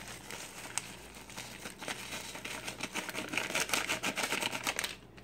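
Paper pouch of dry onion soup mix being shaken out as the mix pours: rapid crinkling of the packet with a dense run of small ticks, busiest in the last couple of seconds.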